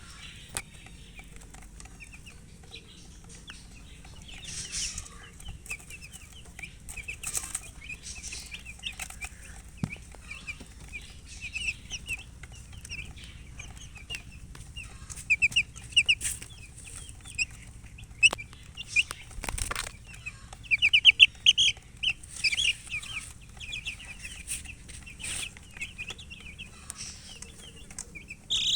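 Baby chicks peeping over and over in short, high chirps, thickening into rapid runs in the second half, with a few brief rustling bursts among them.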